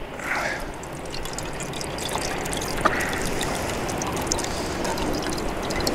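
Leftover bouillabaisse soup pouring from a metal pot through a handheld mesh strainer, a steady trickle of liquid with a few small clicks.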